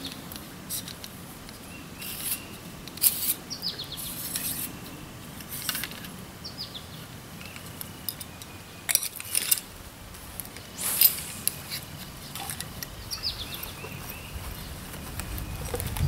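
Handling of a telescopic fishing rod and spinning reel: scattered clicks, taps and light rattles, with the loudest clack about eleven seconds in.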